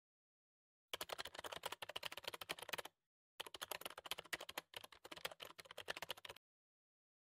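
Keyboard typing sound effect: fast, dense key clicks in two runs, the first about two seconds long and the second about three, with a short break near the three-second mark.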